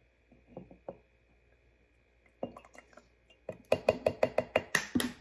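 Plastic measuring cup knocking and clinking against the rim of a glass mason jar, tapped to shake out the last of the creamer. A few light taps give way, past the halfway point, to a quick, loud run of knocks, several a second.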